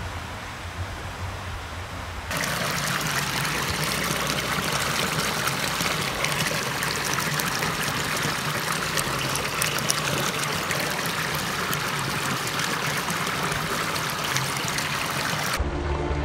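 Shallow stream water running and splashing close by, cutting in suddenly about two seconds in after a quieter low rumble.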